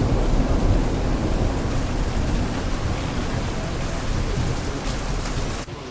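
Strong wind and rushing waterfall spray make a loud, steady roar, with heavy wind buffeting on the microphone. The wind is pushing the falling water back upward. It drops off abruptly near the end.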